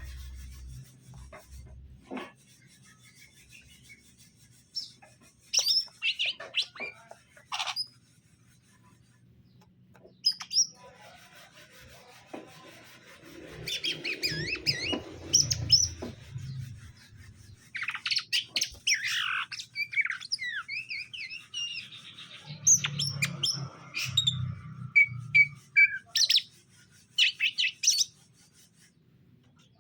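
Green leafbirds (cucak ijo) calling in several bursts of sharp, quick chirps and squeaky, sweeping whistles, with short pauses between the bursts. A faint low hum sits under some of the louder stretches.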